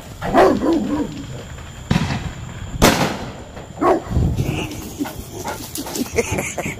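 Dog vocalizing, with two sharp firework bangs about two and three seconds in, the second the loudest.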